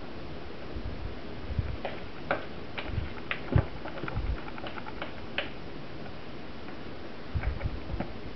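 A spatula scraping and tapping inside a plastic container as thick soap batter is scraped out and poured into a mould. It makes a run of small irregular clicks and scrapes through the middle, with a few soft low bumps of the container being handled.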